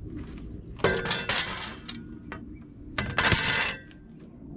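Steel clutch plates from a cable control unit's clutch pack clinking and ringing against each other as they are handled, in two short rattling bursts, about a second in and again about three seconds in.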